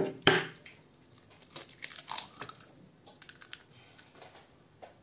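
An egg cracked open against a blender's chopper bowl: two sharp knocks right at the start, then light crackling and clicks of the shell being broken apart.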